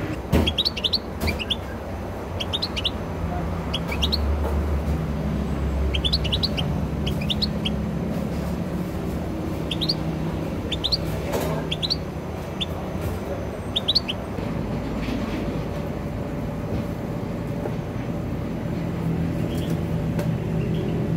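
Small caged songbird chirping in short high clusters of two to four notes every second or two, thinning out after about fourteen seconds, over a steady low rumble.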